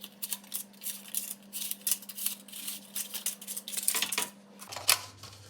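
Paper patty pans (cupcake cases) being set into a baking tray: a quick run of light rustles, clicks and small knocks.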